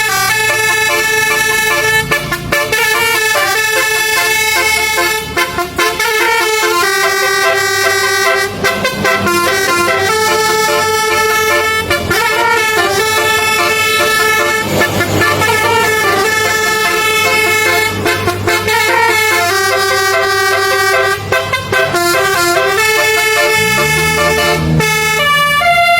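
Multi-tone basuri 'telolet' bus air horn playing a tune. Its notes are held for about a second each or rattled off in quick alternating runs, and a low tone rises and holds near the end.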